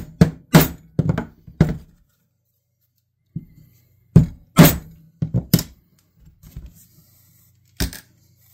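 Mallet strikes on a metal leather punch driving stitching holes through leather into a wooden board: sharp knocks in two quick runs of about four, with a pause of about two seconds between, and one more near the end.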